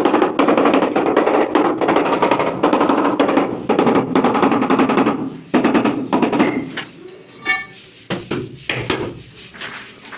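A rubber mallet tapping quickly and continuously on a large wall tile, bedding it into the adhesive and levelling it against the leveling clips. The tapping stops about five and a half seconds in, followed by a short burst and a few scattered knocks.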